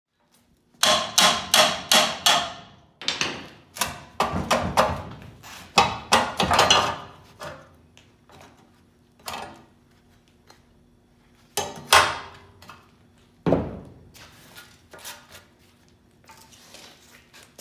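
Hand hammer striking the steel shock mount bracket on a car frame rail with sharp, ringing metal-on-metal blows. Two quick runs of strikes, several a second, give way to a few single heavy blows and then lighter taps near the end.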